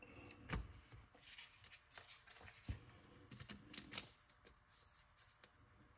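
Pokémon trading cards being handled and flipped through: faint scattered clicks and slides of card stock, the loudest about half a second in and again near the middle.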